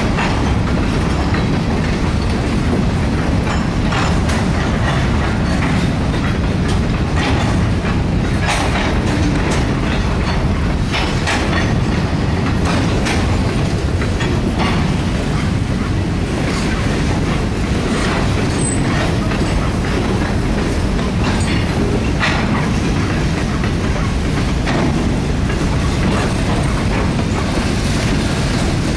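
Freight train cars rolling past: a steady rumble of steel wheels on the rails, with irregular clicks and clanks as the wheels cross rail joints.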